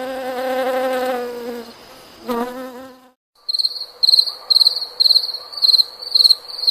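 A bee buzzing, a wavering hum that fades out about three seconds in. After a short pause a cricket starts chirping, a high-pitched tone in regular chirps a little under two a second.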